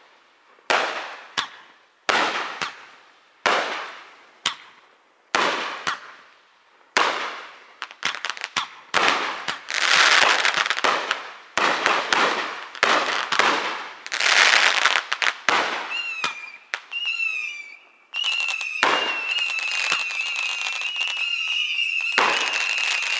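Fireworks display: aerial shells bursting one after another, each bang trailing off in a crackle, thickening midway into a dense run of reports and crackle. For the last seven seconds a high, wavering whistle sounds over the continuing bangs.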